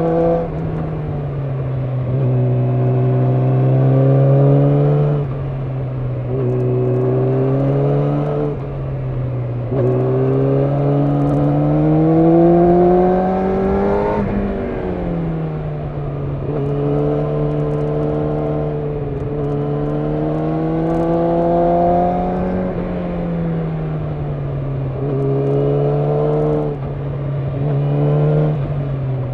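Yamaha YZF-R6's inline-four engine under way, its revs climbing repeatedly and falling back, with several sudden drops in pitch as the throttle is worked and gears change.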